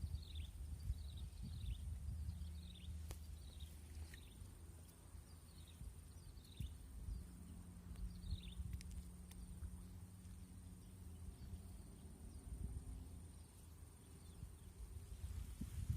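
Outdoor ambience: an animal gives a run of short, high, falling chirps, about one every 0.7 seconds, stopping about nine seconds in. Underneath are a low rumble and a thin steady high whine.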